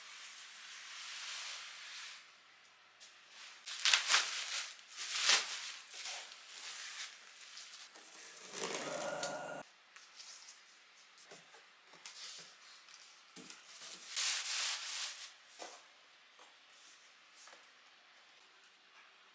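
Packing of a large cardboard box being torn off and the box opened: bursts of plastic wrap and tape tearing and crinkling and of cardboard rubbing. The loudest rips come about four and five seconds in, there is a one-second scrape near the middle, and another burst comes near three-quarters of the way through.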